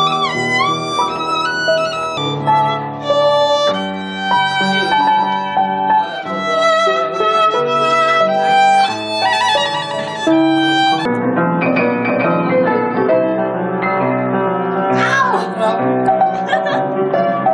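A violin bowed in a solo melody of sustained notes, with a slide in pitch at the start. About eleven seconds in, it gives way to a piano played four hands, with many notes sounding together.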